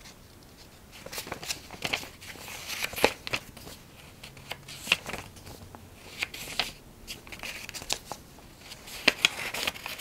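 Tarot cards being handled and shuffled: soft slides, flicks and taps of card stock, coming in several short bursts with pauses between.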